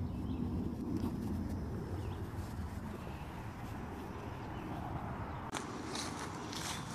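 Steady low rumble on a phone microphone, then from about five seconds in, footsteps through grass, each step a short rustle.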